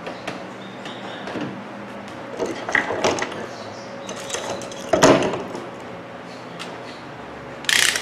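Handling noise from a multimeter and its test leads being picked up and set up: scattered clicks, knocks and rattles. The loudest knock comes about five seconds in, and a short scrape follows near the end.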